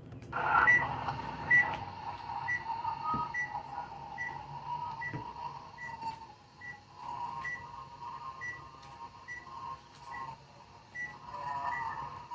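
Short high electronic beep repeating a little faster than once a second, over a wavering mid-pitched tone.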